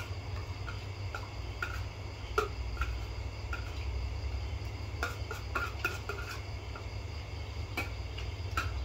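Metal spoons clinking and scraping on ceramic plates during a meal, in irregular single clicks about every half second to a second. A steady chirring of crickets and a low hum run beneath.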